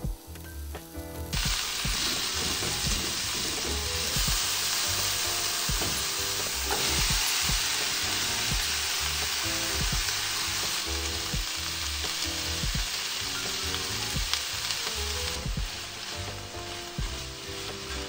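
Food sizzling hard in hot olive oil in a frying pan, with the scrape and clack of a utensil stirring it. The sizzle starts suddenly about a second in and eases somewhat near the end.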